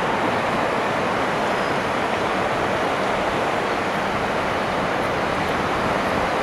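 Steady rushing noise of a tugboat's propeller wash churning the water, with a faint low hum of its diesel engine running underneath.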